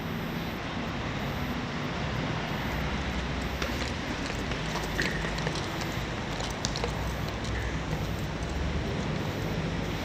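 Steady outdoor city background noise with a low hum of traffic, and a few light clicks in the second half.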